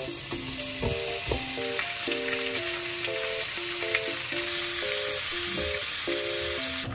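Sliced pork belly sizzling steadily in hot oil in a frying pan as it is stir-fried with long chopsticks, with a couple of knocks about a second in. Light mallet-percussion background music plays underneath.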